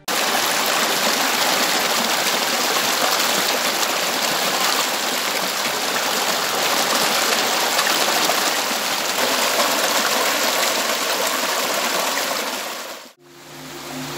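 Stream water rushing over rocks in a small cascade: a steady, full hiss of flowing water. It cuts off suddenly near the end, where soft music begins.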